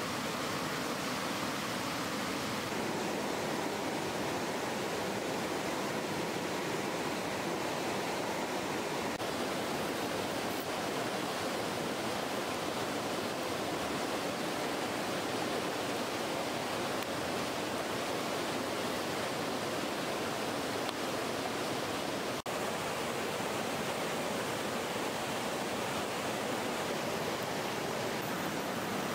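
Steady rushing of river rapids, an even wash of water noise, briefly cut off about three-quarters of the way through.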